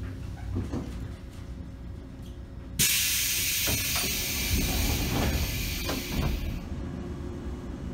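Pneumatic door engine of a JNR KuHa 455 express-type electric car hissing loudly with released compressed air as the automatic sliding door opens, with a few clunks of the door mechanism. The hiss starts suddenly about a third of the way in and stops about four seconds later, over the low hum of the stopped train.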